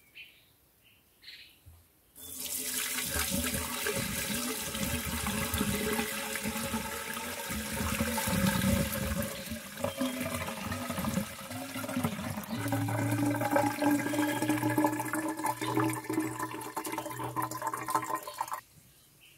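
Water pouring from the cut end of a bamboo pipe into a bamboo cup: a steady splashing flow that starts about two seconds in and stops abruptly near the end, rising slightly in pitch as the cup fills.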